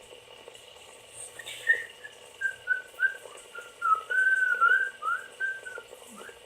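A person whistling a wandering string of notes that rise and fall, starting about a second and a half in.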